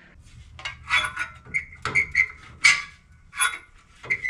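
Irregular short clicks and scrapes, several with a brief high squeak, from handling a roller door's rubber seal and its metal side track.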